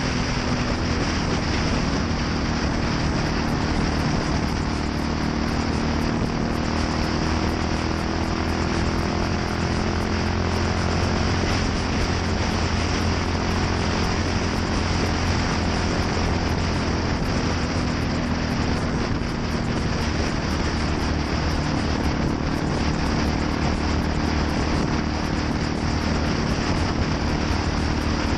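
Yamaha SR400's air-cooled single-cylinder four-stroke engine running steadily through a NitroHeads aftermarket muffler, its pitch drifting slightly up and down.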